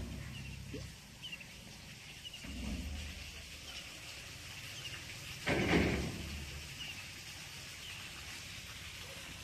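A hooked rohu splashing in the shallow water at the bank as it is grabbed by hand, with one brief loud splash about halfway through. Small birds chirp faintly throughout.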